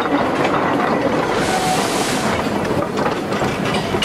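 Narrow-gauge freight wagons rolling past on light railway track, their steel wheels running on the rails with a dense run of small clicks and knocks.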